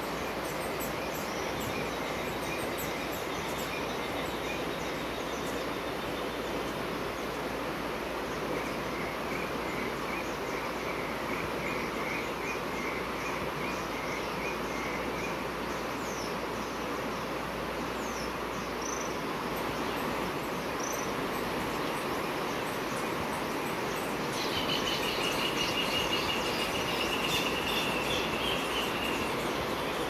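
Steady rush of flowing water with small birds chirping and trilling over it, and a clearer trilling song a little over three-quarters of the way in.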